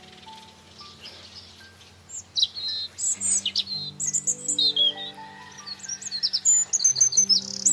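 Small songbirds chirping in quick, high, sharply falling notes. They start about two seconds in and grow busier, with a fast repeated trill near the end. Soft background music of slow, held notes plays underneath.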